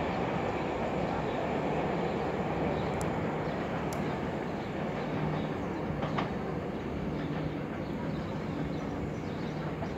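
A Network Rail test train powered by a Class 37 diesel locomotive moving away down the line. Its rumble and low engine drone fade slowly.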